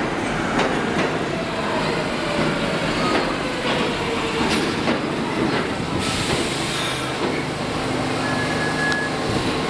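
R46 subway train pulling into the station and slowing, its wheels clacking over the rail joints under a slowly falling whine. A burst of hiss comes about six seconds in, then a low steady hum as the train comes to a halt.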